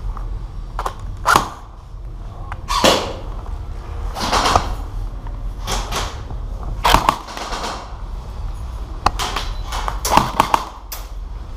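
A string of irregular short, sharp noises, about eight of them, some coming in quick clusters of two or three near the end, over a steady low rumble.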